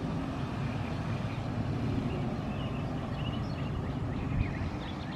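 Outdoor ambience: a steady low rumble with small birds chirping, the chirps coming in about two seconds in.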